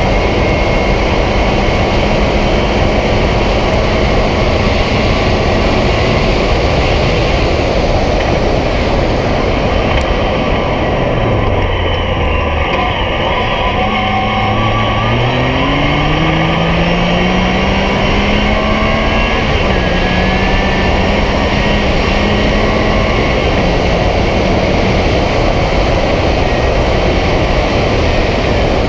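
Yamaha YXZ1000R's three-cylinder engine running under way over heavy wind and dirt-road tyre noise. About eleven seconds in the engine note falls away as it slows, then climbs steadily back up over several seconds as it accelerates again, settling into a steady drone.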